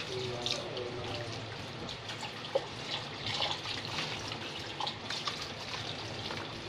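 Kitchen tap running into a sink while dishes are rinsed by hand, with the water splashing and changing as bowls are held under it. Scattered light clinks of bowls and dishes knocking together.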